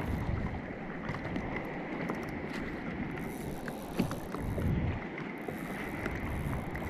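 Choppy sea water lapping and sloshing against a kayak's hull, with wind on the microphone and a light knock about four seconds in.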